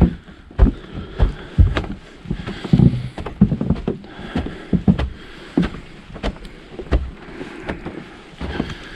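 Footsteps crunching through fresh snow at a steady walking pace, about one and a half steps a second.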